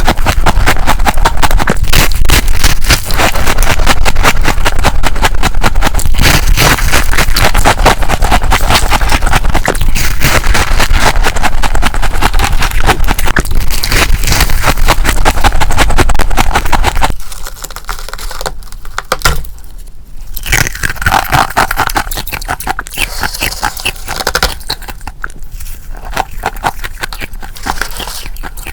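Thick freezer frost being scraped and crunched close to the microphone: a dense, continuous crackling scrape, dropping after about 17 seconds to quieter, intermittent crunching.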